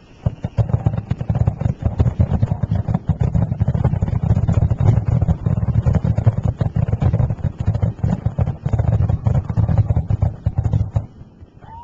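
Fireworks display going off in a dense, rapid barrage of bursts and booms that overlap into a continuous rumble, stopping abruptly about eleven seconds in.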